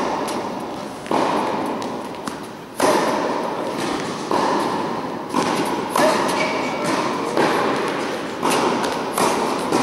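Tennis ball strikes and bounces on an indoor hard court: a string of sharp racquet-on-ball hits and ball bounces about every second or so, each ringing on in the hall's echo.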